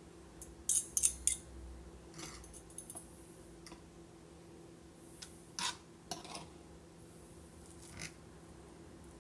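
Scattered short clicks and scrapes of a utensil against a dish while cooked chicken is shredded, a quick cluster of three about a second in and single ones after, over a faint steady hum.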